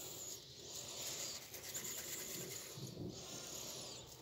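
Faint rubbing and rustling of hands pressing and rolling crumbly date-and-semolina dough into balls in an aluminium pan, with a soft low bump about three seconds in.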